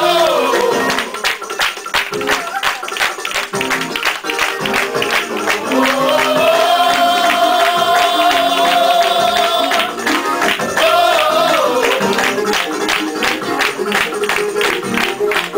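Fast, upbeat church praise music with quick steady percussion. A long held note comes in about six seconds in and lasts several seconds.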